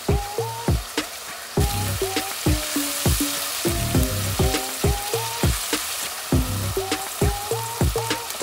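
Vegetables frying in hot oil in a pan, a steady sizzle that grows louder about a second and a half in. Background music runs under it.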